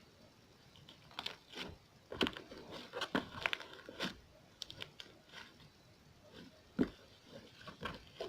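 Butter slime squished and stretched by hand, giving irregular sticky pops and crackles, thickest between about one and five seconds in, with a few more sharp pops near the end.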